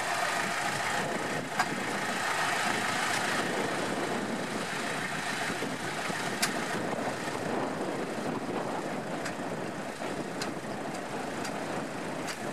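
A vehicle engine running steadily at idle, with a few faint clicks.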